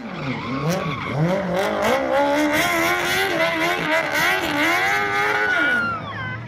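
Smart car powered by a Yamaha R1 inline-four motorcycle engine, revving high and swinging up and down in pitch as the car drifts and spins, with tyres squealing. Near the end the revs fall away as the throttle comes off.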